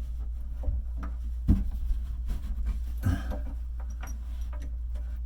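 A few light knocks and clunks from fitting a miter draw bolt into place under a countertop, the loudest about a second and a half in, over a steady low hum.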